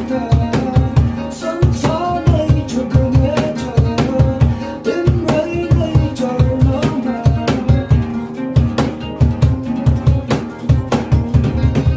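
Live acoustic music: two acoustic guitars played together with a man singing, over a steady low drum beat. The singing drops out about two-thirds of the way through while the guitars and beat carry on.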